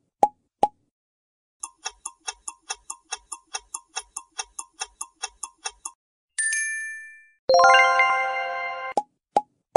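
Quiz-game sound effects. Short pops sound as the answer options appear, then a countdown clock ticks quickly, about five ticks a second, for about four seconds. A bright ding follows, and a ringing chime sounds as the next question comes up, then more pops.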